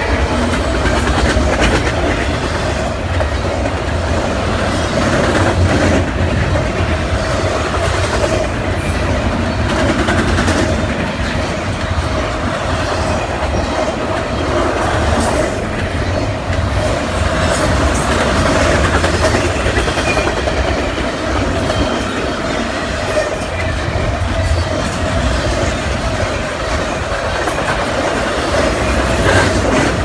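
Double-stack container cars of a freight train rolling past at track side: a steady rumble and clatter of steel wheels on the rails, with a steady whine from the wheels over it.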